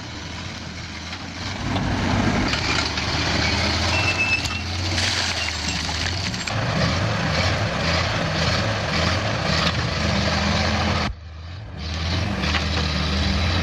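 Engine of a Bantam cable excavator running steadily with mechanical clatter, breaking off briefly about two-thirds of the way through before resuming.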